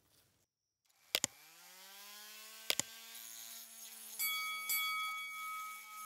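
Handheld rotary tool with a rubber abrasive point: its motor spins up to a steady whine, broken by two sharp clicks. From about four seconds in it grows louder and adds a higher-pitched squeal as the bit grinds the rust off the steel knife liner.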